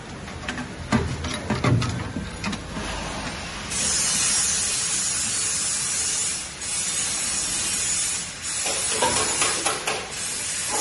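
Double-chamber mild-steel pulverizer: a few knocks and clicks at its chamber door, then about four seconds in the machine starts up at high speed with a loud, steady rushing hiss that dips briefly twice.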